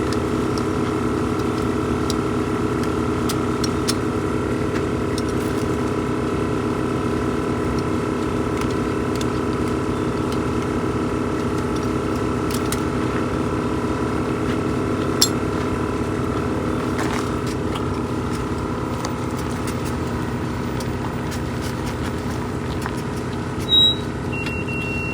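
A motor running steadily with an even, unchanging drone. A short high beep sounds near the end.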